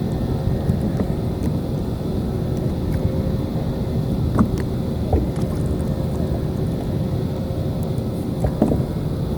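Steady low rumble of wind buffeting the microphone at the seashore, with a few faint ticks.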